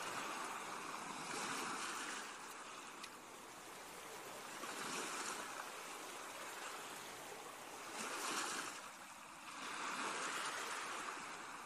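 Ocean surf: waves washing in and drawing back, swelling about four times.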